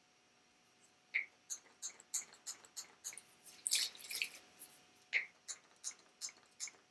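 Hand-pump bottle of sea salt hair spray being spritzed over and over, short hissing sprays about three a second, with one longer, louder spray near the middle.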